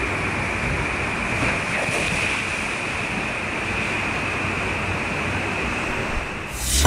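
Water flowing out of a tube water slide's open runout and churning in the landing pool: a steady, even rushing. Music starts right at the end.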